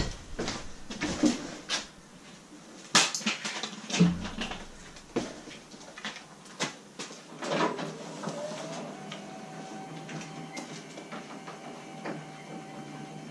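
A few sharp knocks and clicks, then about eight seconds in an electric garage-door opener motor starts with a short rising whine and settles into a steady hum as the up-and-over door begins to close.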